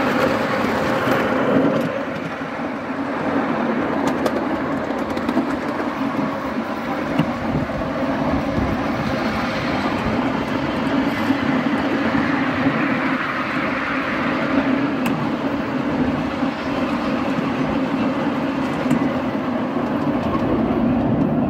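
Ride on a 7¼-inch gauge miniature train: the steel wheels of the passenger cars rolling on the rails, a steady rattling rumble with a few faint clicks.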